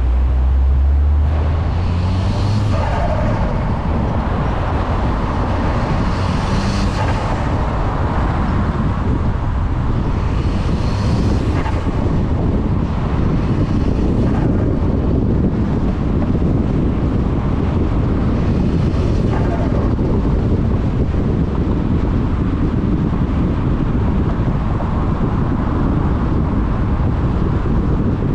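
Volkswagen MK6 Golf R's turbocharged four-cylinder engine pulling under way, its low note rising in pitch over the first couple of seconds, then a steady rumble mixed with road and wind noise. Short rushes of hiss come through a few seconds apart.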